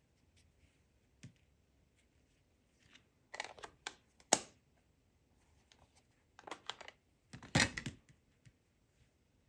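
Small clicks, taps and rustles of craft supplies being handled on a tabletop, in two short bursts about three and a half and seven and a half seconds in, the sharpest a single click about four seconds in.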